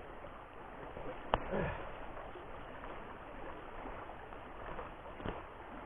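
Steady rush of a small overflow creek flowing, with one sharp click about a second in and a fainter knock near the end.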